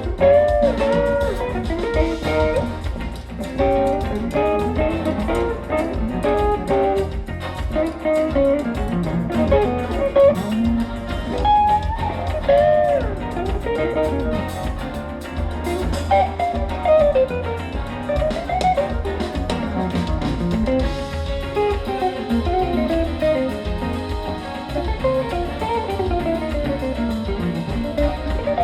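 Live band playing a Latin jazz tune: an electric guitar solos in fast melodic runs with bent and sliding notes, over bass and drums.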